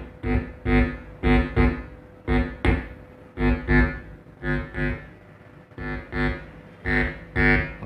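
Mains hum buzzing through the speaker in short bursts, often in pairs, as a fingertip touches the left channel's input on a home-built 31-band graphic equalizer. Each buzz means the touch signal is passing through, so the channel works.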